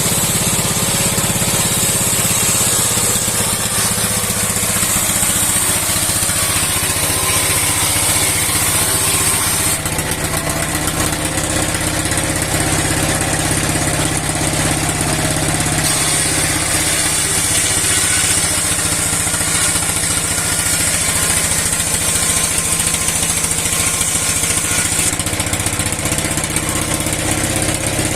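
A 60-year-old engine runs steadily, driving a steel saw for cutting wood. A high hiss fades about ten seconds in, returns about sixteen seconds in, and fades again near the end.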